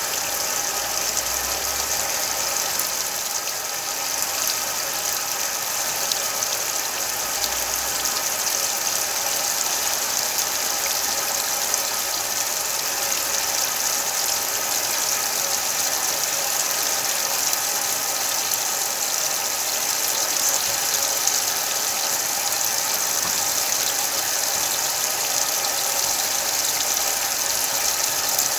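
Whirlpool washing machine running steadily with a load of sheets and pillows: an even motor whine over a constant hiss.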